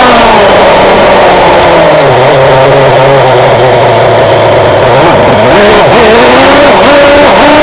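Traxxas Jato 3.3's nitro two-stroke engine, heard loud and close. It comes off high revs and runs low and uneven for a few seconds, then revs back up in a steady climb near the end.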